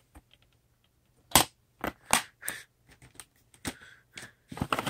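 Plastic DVD cases being handled, opened and snapped shut: a loud snap about a second and a half in, then about half a dozen lighter clicks and clacks.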